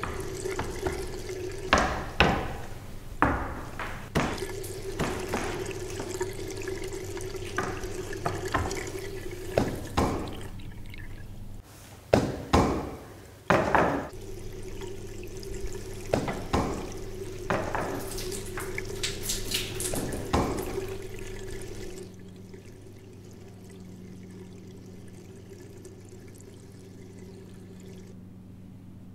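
Water splashing and dripping in irregular sharp strokes, one or two a second, over a steady low hum. About three quarters of the way through the splashing stops and only the hum remains.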